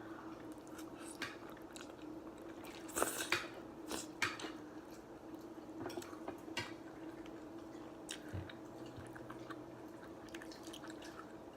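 A person chewing and eating creamy shrimp Alfredo pasta, with wet mouth clicks and smacks coming irregularly, over a steady low hum.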